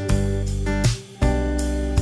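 Background music: an acoustic guitar strumming chords, with several strums in quick succession.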